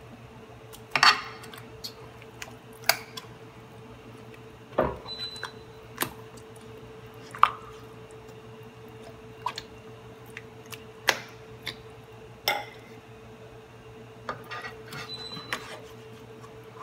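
A fork clicking and scraping against a nonstick frying pan as pork chops are pushed and turned in thick tomato sauce, with soft squelches from the sauce. Single clicks come every second or two over a steady low hum.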